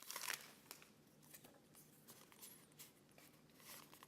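Near silence with faint rustling and light ticks of a torn-open booster pack's foil wrapper and trading cards being handled, a little louder in the first half second.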